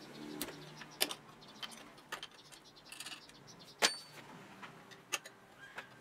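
Metal-on-metal clinks of an open-end wrench working the nut and clamp bolt of a rusty child's bicycle handlebar: a handful of scattered sharp clicks, the loudest nearly four seconds in with a brief ring.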